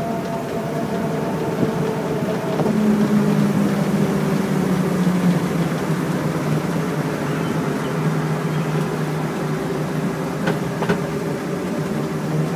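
1928 Graham Brothers truck's engine running as it drives, over road and wind noise. The engine note rises a few seconds in, then eases back down and settles lower.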